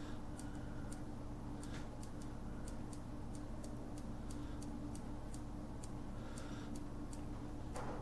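Light clicks at a steady pace, about three a second, from a small tactile push button on a breadboard being pressed again and again to step up the minutes of an Arduino alarm clock. A faint steady hum lies underneath.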